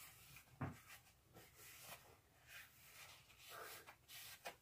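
Faint rubbing and rustling of a makeup-remover wipe drawn across the face, with a couple of soft clicks.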